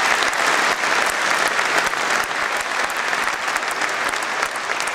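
Audience applauding: many hands clapping in a dense, even patter that holds steady throughout.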